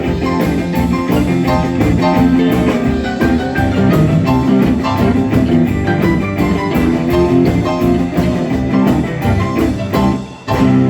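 Live rock 'n' roll band playing a boogie-woogie number, with guitar over a steady drum beat. The band stops for a moment near the end.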